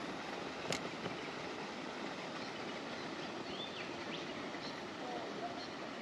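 Steady outdoor background hiss with a few faint bird chirps past the middle, and a single sharp click about three quarters of a second in.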